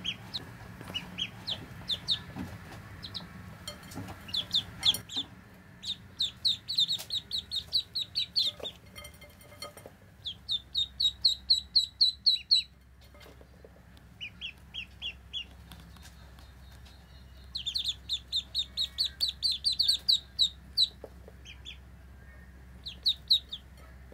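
Ducklings peeping: runs of short, high peeps, about four or five a second, in several bouts with brief pauses between.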